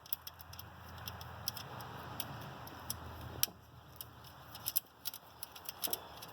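Irregular light metallic clicks and taps of a hand wrench and hardware as the wire is fastened onto the terminal stud on the back of the alternator.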